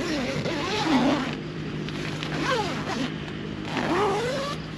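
Tent door zipper being drawn closed in several pulls, each a short rasping sweep.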